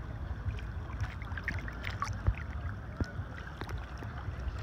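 Shallow seawater lapping and sloshing, with a low rumble of wind on the microphone and a few scattered small clicks.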